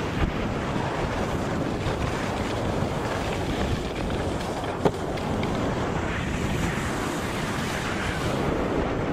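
Steady wind rushing over the microphone of a camera riding fast down a snowboard run, with a single sharp knock about halfway through.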